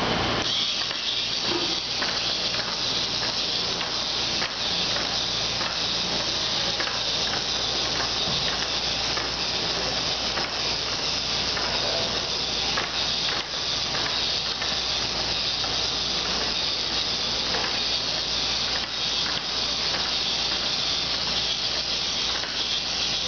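Small battery motor and plastic gearbox of a K'nex Razor Motobot running: a steady high whirring hiss with fast, faint clicking as the toy robot moves across a tabletop.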